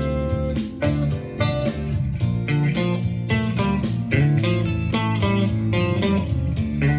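Electric guitar lead from a Fender Stratocaster through a Fender Blues Junior IV amp, playing a line of separate notes over a backing track.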